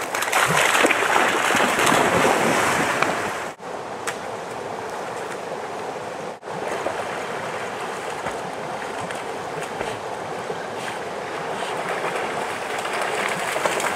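River water rushing and splashing in a steady stream of noise, loudest in the first few seconds, with two brief dropouts.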